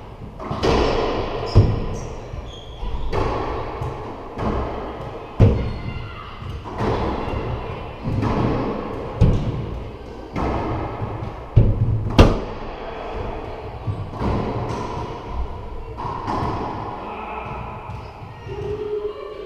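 Racquetball rally on an enclosed court: the hollow rubber ball cracks off racquets and walls in sharp, echoing hits every second or few, the loudest about twelve seconds in. The hits thin out near the end as the rally finishes.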